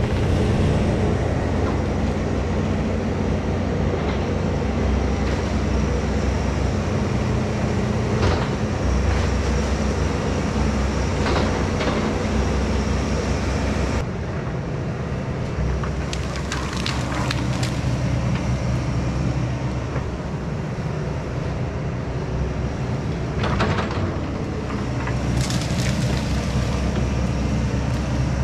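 Takeuchi excavator's diesel engine running steadily under load, with sharp cracks and splintering of wood every few seconds as its forestry mulcher head chews through brush and small trees. The sound drops a little about halfway through.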